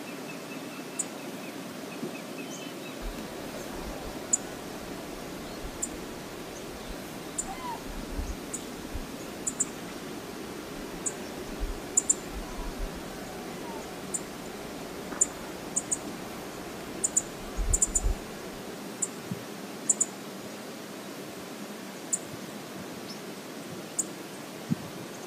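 Steady rushing of river water with low, gusty wind rumble in the first two-thirds, a few faint bird calls, and irregular sharp high ticks that stand out above the rush.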